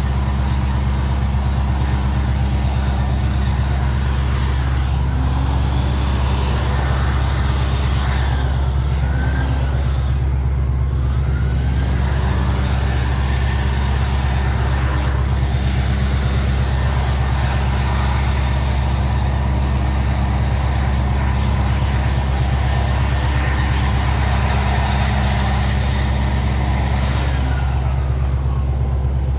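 Wood chipper's engine running steadily with a deep, even drone, with some faint tones briefly rising and falling in pitch partway through.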